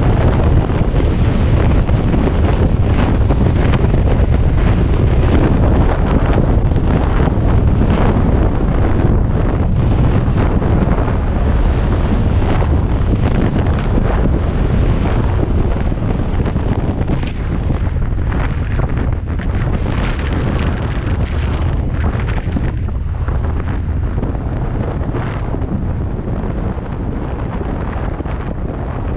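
Wind buffeting the microphone on a moving 2017 Harley-Davidson Street Glide Special, a steady rush over a heavy low rumble from the ride, easing slightly in the later part.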